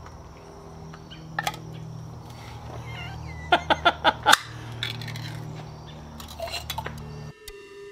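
Sharp clinks and clicks of hard objects being handled: a quick run of five or six about halfway through, with a few more before and after, over a steady low hum. Music cuts in near the end.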